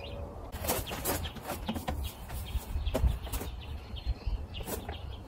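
Scattered light clicks and knocks from handling a metal-tube shelf frame and from footsteps on gravel, over a low rumble of wind on the microphone.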